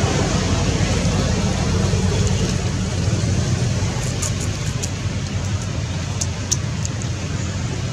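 Steady low outdoor background rumble with a few faint, short high ticks between about four and seven seconds in.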